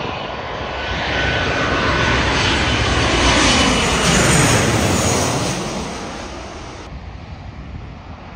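Twin-engine narrow-body jet airliner on final approach with its landing gear down, passing low overhead. The engine noise swells to a peak about four seconds in, with a faint steady whine, then falls in pitch and fades as it passes.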